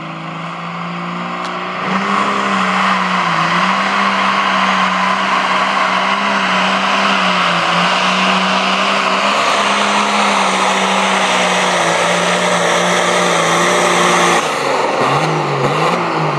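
John Deere pulling tractor's diesel engine running at full throttle under load, a loud steady high-revving note with a heavy hiss over it. About fourteen seconds in the throttle is cut and the engine drops to a lower, wavering note.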